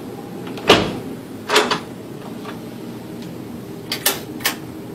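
Closet door being opened, with a few knocks and clicks: the loudest about a second in, another soon after, and a couple more near the end.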